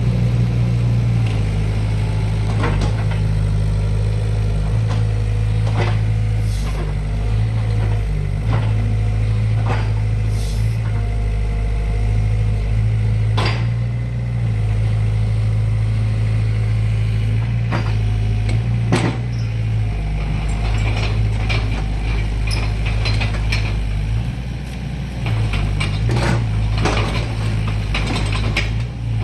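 SANY 60C mini excavator's diesel engine running steadily, with scattered clanks and knocks from the machine and a few brief whining tones.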